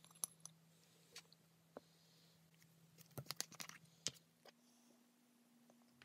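Quiet, scattered clicks and taps of small parts being handled on a workbench. There is a quick run of clicks about three seconds in and a sharper tap just after four seconds, as a small bottle of brush gold-plating solution is set down. A faint steady low hum runs underneath.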